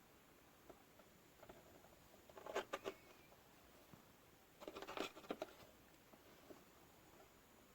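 Near silence broken by two short flurries of light clicks and taps, about two and a half and five seconds in.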